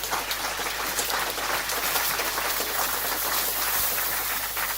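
Food sizzling and crackling steadily in a hot frying pan, with red pepper just added to the browning ingredients.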